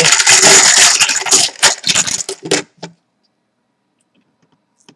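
Hand rummaging through a cup of small plastic team-logo balls: a dense rattling clatter of the balls knocking together and against the cup, stopping about three seconds in as one is drawn out.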